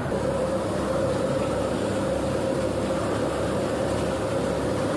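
Tractor-driven thresher running steadily under load as bundles of crop stalks are fed in: an even mechanical rumble with one constant tone through it.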